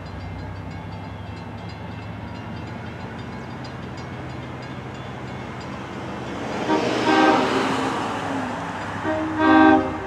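Long Island Rail Road train's horn sounding twice: one blast about seven seconds in and a shorter, louder one near the end. Both come over a steady low rumble of the train.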